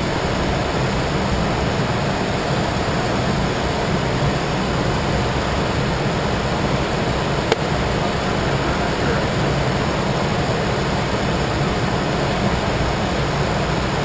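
Steady rush of airflow and engine noise inside a jet's cockpit in flight, with one short click about halfway through.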